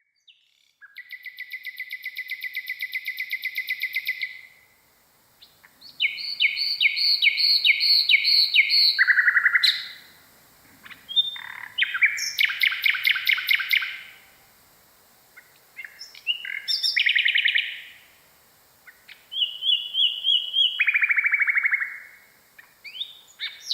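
Common nightingale singing: a run of varied phrases, each a rapid series of repeated notes or trills, separated by short pauses.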